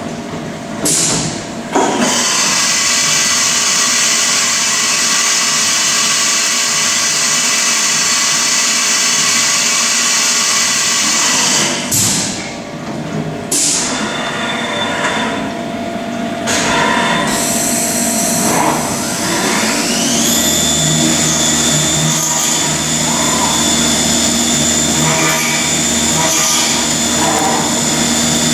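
CNC milling machine cutting aluminium under flood coolant: a drill runs with a loud, steady hiss of spraying coolant, breaks off briefly about halfway, then the spindle rises in pitch and settles into a steady high whine with a low hum as a face mill cuts.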